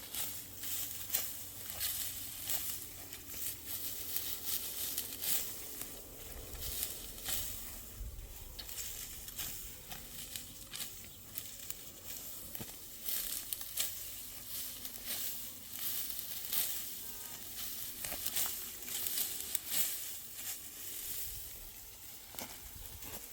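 Dry rustling and crackling with many small, irregular clicks throughout.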